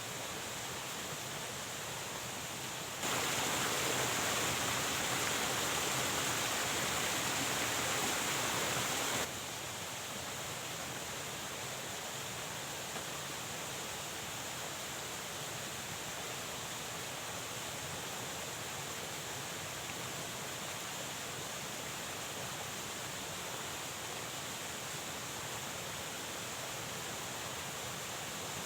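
Steady rushing of flowing water, louder for about six seconds from about three seconds in, then dropping back to the earlier level.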